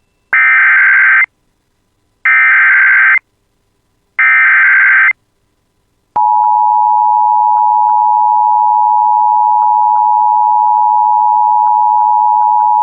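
Emergency Alert System SAME header: three short, buzzy digital data bursts about two seconds apart, then a loud, steady alert attention tone starting about six seconds in and held through the rest, announcing a severe weather warning.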